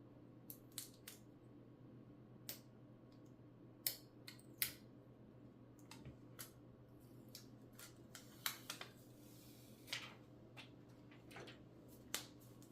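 Irregular small, sharp clicks and ticks of hand tools handling tiny phone parts while adhesive is peeled from an iPhone earpiece speaker assembly, over a faint steady low hum.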